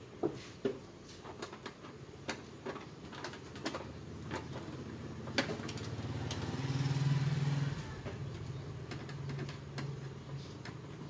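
Scattered small clicks and knocks of a screwdriver prying at the plastic casing of an Epson L3110 printer. A low, steady, engine-like hum swells about halfway through, is loudest around seven seconds, then eases off.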